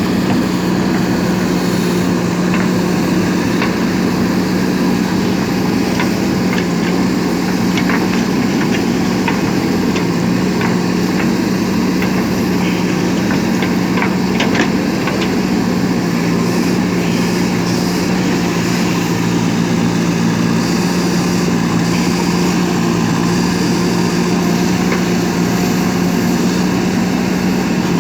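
JCB 3DX backhoe loader's diesel engine running steadily with a constant hum, with a few faint clicks near the middle.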